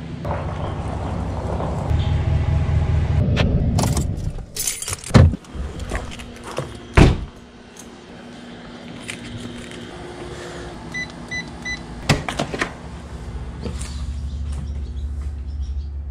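Pickup truck engine running, then stopping about four seconds in. Two loud bangs follow, then three short electronic beeps and a few clicks later on.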